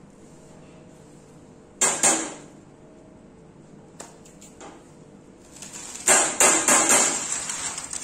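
Metal bakeware knocking and scraping on a stone counter: two loud clatters about two seconds in, a single click a little later, then a longer run of rattling and scraping near the end.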